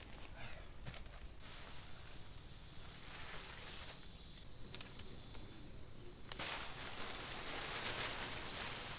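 Insects chirring in a steady high-pitched chorus, with a few soft clicks in the first second.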